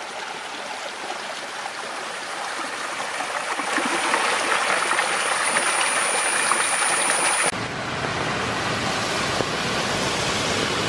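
Small rocky forest stream cascading over rocks, running full of rainwater: a steady rush of water that grows louder over the first few seconds. About seven and a half seconds in it changes abruptly to a fuller, deeper rush.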